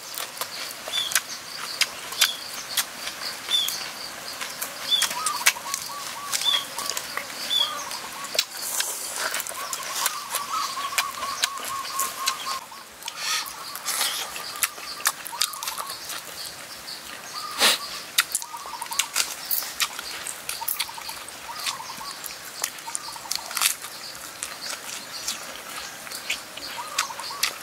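Close-up eating sounds: a man chewing, lip-smacking and sucking his fingers, as a run of sharp wet clicks and smacks. Birds call behind it: a short high chirp repeats about once a second for the first several seconds, and a trilling call comes and goes around the middle.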